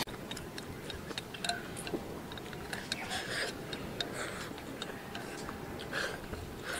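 Wooden chopsticks clicking and scraping against a ceramic bowl as rice is shovelled from the rim into the mouth: a string of small, irregular ticks.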